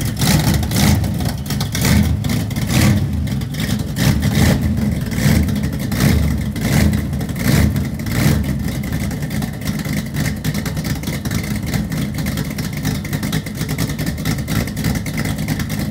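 A vehicle engine running, its loud low rumble swelling and easing about once a second at first, then settling into a steadier run.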